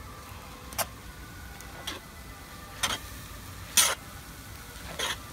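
Long-handled metal spatula scraping and knocking against a wide flat cooking pan while stirring a large batch of scrambled egg and chicken, about five short strokes roughly once a second, the fourth the loudest.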